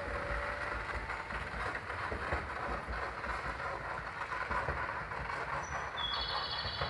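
Electric train on the Hokuriku Line approaching from a distance, a steady rumbling running noise with irregular low thumps. Near the end a set of high steady tones comes in.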